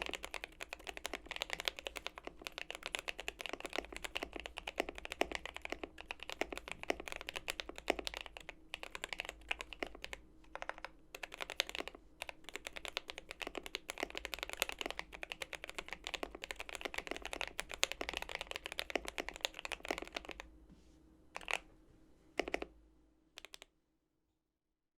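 Fast, continuous typing on a GMMK Pro mechanical keyboard with a polycarbonate plate and filmed, lubed JWK Durock HaluHalo linear switches: smooth, clacky keystrokes. Near the end the typing thins to a few separate key presses, then stops.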